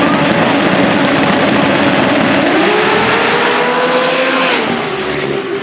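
Drag-race cars' engines running hard at the start line, then launching and accelerating down the strip, the engine pitch climbing steeply about two and a half seconds in. The sound drops off suddenly near the end.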